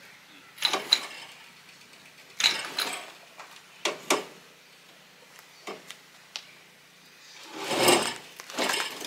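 Metal clanks and clinks as an engine and automatic gearbox hanging from an engine crane are worked free of the car's engine bay: a run of short knocks with a metallic ring, then a longer, louder rattle near the end.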